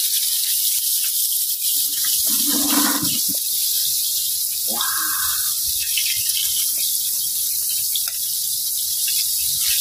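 Hot oil sizzling steadily with battered duck pieces deep-frying in it: a constant high hiss.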